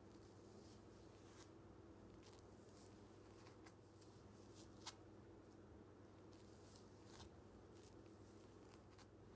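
Near silence: faint rustles and soft ticks of hands wrapping elastic hair ties around sections of hair, over a low steady hum.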